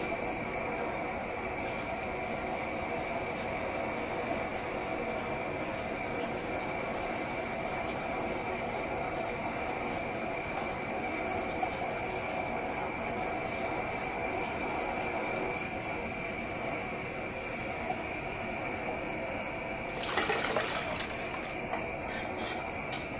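Pot of groundnut sauce, thinned with added water, simmering on the stove with a steady hiss. About twenty seconds in there is a louder rush of noise, followed by a few knocks.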